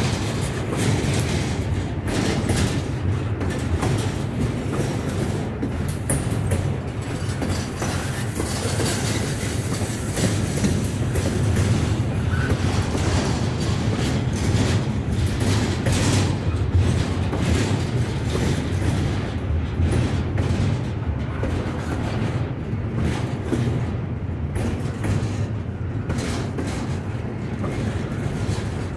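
Norfolk Southern freight train rolling past with a steady low rumble, its wheels clicking over the rail joints again and again.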